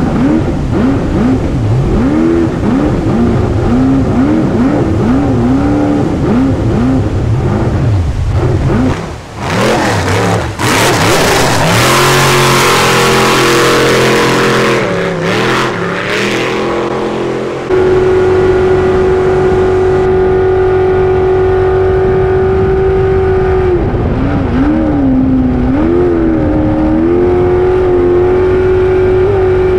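Racing jet boat's engine at high revs, heard from on board, its pitch swinging rapidly up and down as the throttle is worked. Partway through, a loud rushing noise of water and wind covers it for several seconds, then the engine holds a steady high note, dipping and climbing again once near the end.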